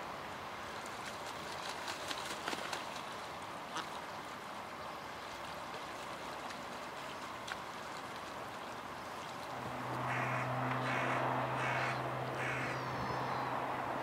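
Canada geese honking several times, with a steady low engine hum setting in behind them about two-thirds of the way through.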